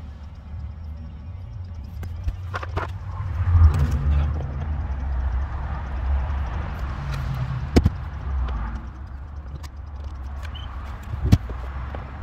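Hands working on the plastic centre-console trim of a car interior, with several sharp clicks and knocks, the loudest two near 8 s and 11 s in, over a steady low rumble on the microphone.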